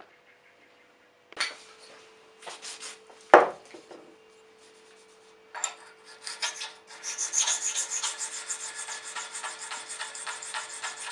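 Rapid back-and-forth abrasive rubbing on the steel of old secateurs during their restoration, a few strokes a second, starting about six seconds in and steady from about seven seconds. Before that come a few scattered scrapes and one sharp knock about three seconds in. A faint steady hum runs underneath.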